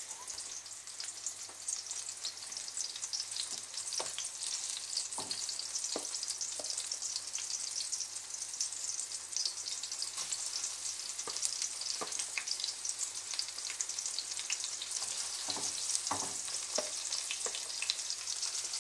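Batter-dipped slices of beefsteak fungus (liver mushroom) sizzling and crackling steadily in hot vegetable oil in a frying pan, with occasional sharp clicks throughout.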